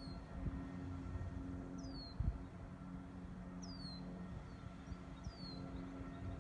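A bird repeating a short, high, down-slurred whistle about every two seconds, four times. Underneath runs a steady low hum with several held tones, the running equipment of a utility-scale solar facility, with some low wind rumble and one low thump a little after two seconds in.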